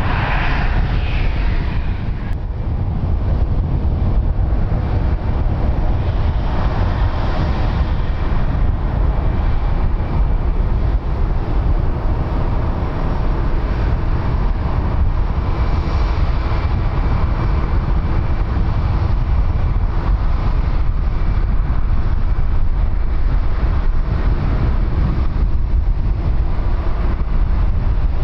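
Wind buffeting the microphone: a steady, loud low rumble with a faint steady high tone running through it.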